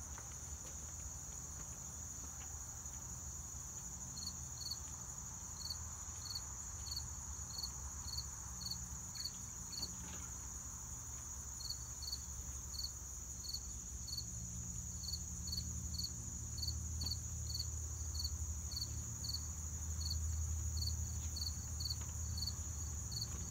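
Insects trilling in a steady, high, continuous drone, joined from about four seconds in by short chirps repeating about twice a second. A low rumble runs underneath and grows louder near the end.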